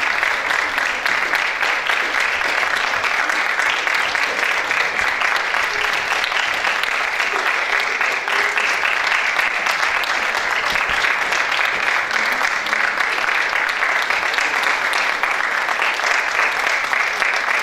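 Theatre audience applauding at the curtain call: steady, unbroken clapping.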